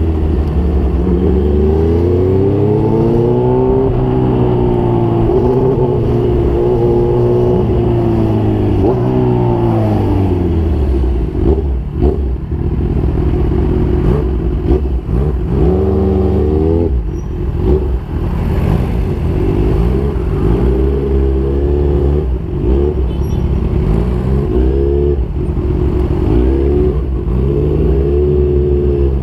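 Motorcycle engine running at low revs, its pitch rising and falling as it is revved and eased off, then more uneven with a few short knocks later on.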